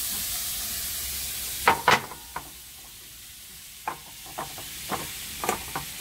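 Butter sizzling in a hot pan on a wood-burning stove, the hiss dropping after about two seconds. A cluster of sharp knocks about two seconds in is the loudest sound, followed by a few scattered lighter clicks of utensils and containers.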